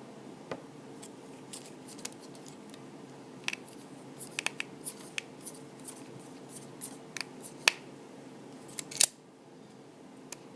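Irregular small sharp clicks and taps of a precision screwdriver working the tiny corner screws out of an iPhone 4 bezel, with the screws and parts tapping on the work surface. The loudest click comes about nine seconds in.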